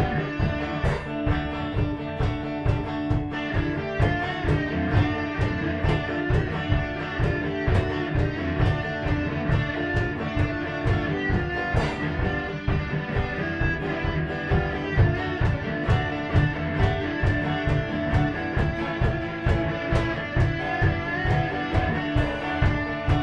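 Live rock band playing: lead and rhythm electric guitars over a drum kit keeping a steady beat.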